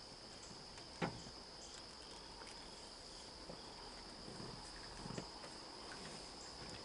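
Steady high-pitched insect chorus in dusk woodland, with one sharp click about a second in and a few soft knocks near the middle.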